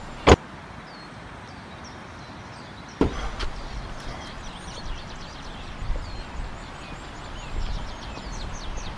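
A Chevrolet Camaro's door slams shut once, sharply, just after the start. A second, duller thump follows about three seconds in, then light footsteps, with birds chirping in the background.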